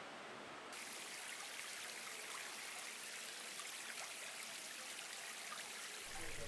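Water trickling and splashing down a textured wall fountain, a steady rushing patter that starts suddenly about a second in. A low steady hum comes in near the end.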